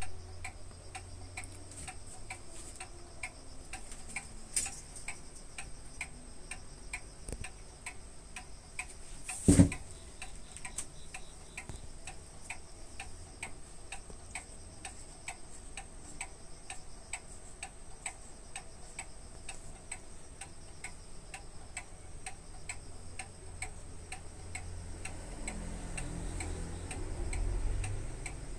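A clock ticking steadily, with evenly spaced ticks throughout. A single sharp knock stands out about nine and a half seconds in, and a low rumble comes in near the end.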